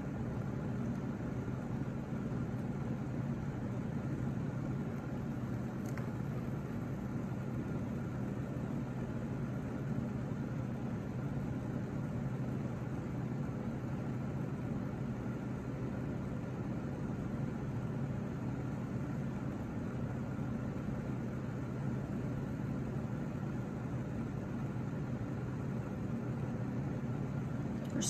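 Steady low mechanical hum with several low tones and a faint hiss, unchanging throughout, with a faint click about six seconds in.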